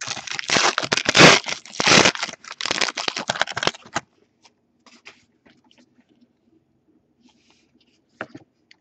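Foil wrapper of a 2013-14 Panini Elite basketball card pack crinkling and tearing open, a dense crackle for about four seconds, then only faint scattered rustles as the cards come out.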